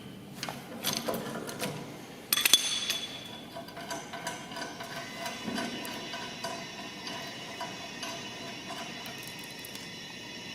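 A 17 mm socket ratchet clicking as bolts holding a rear bar are undone, with a louder metallic clank about two and a half seconds in and a run of quick small ticks afterwards.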